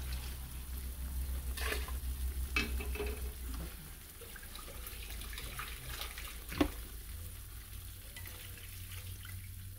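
Red chile sauce sizzling in a frying pan on the stove, with a few sharp clinks from the blender jar and wire strainer being handled over it. A low hum under it stops about a third of the way in.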